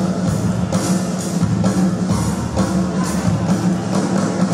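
Dance music with a steady drum-kit beat.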